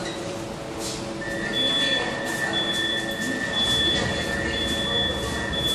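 Metro train's door-closing warning buzzer: a steady high-pitched buzz starts about a second in and keeps sounding while the doors stand open, over a low hum from the train and station.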